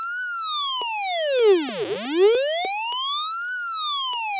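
Small passive speaker driven by an Arduino Uno's square-wave tone output, gliding up and down in pitch like a siren. The pitch falls from high to low, climbs back, and starts falling again near the end, about three seconds per fall and rise.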